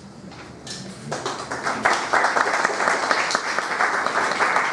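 Audience applauding at the end of a poem, starting about a second in and quickly filling out into steady clapping from many hands.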